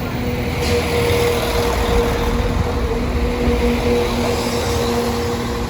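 Diesel train running through the level crossing at close range: a steady drone with a held engine hum over a low rumble, and a hiss of wheel and rail noise joining in under a second in.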